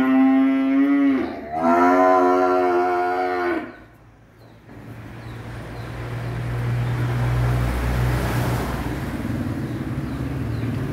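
A young beef calf mooing twice in a pen, two long, fairly high calls of one to two seconds each. From about five seconds in, a steady low hum and rushing noise rises and holds.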